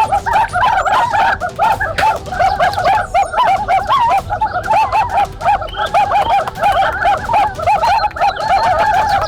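A dense chorus of short, repeated bird calls, many overlapping without a break.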